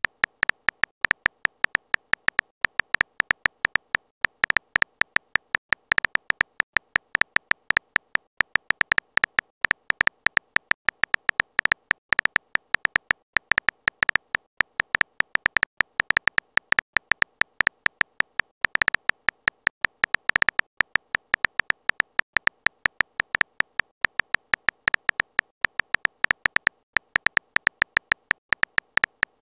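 Texting Story app's synthetic keyboard typing sound: a fast, uneven run of short electronic ticks, one per typed letter, several a second.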